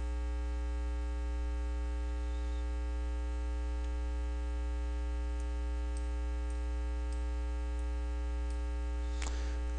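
Steady electrical mains hum in the recording: a low hum with a ladder of higher overtones, unchanging, with a few faint ticks in the second half.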